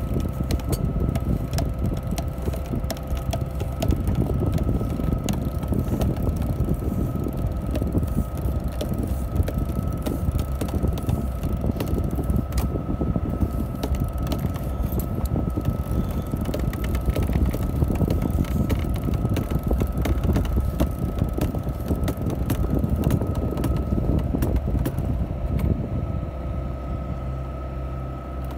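Wind buffeting the microphone aboard a sailing yacht under way: a steady low rumble with crackle, over a constant high hum.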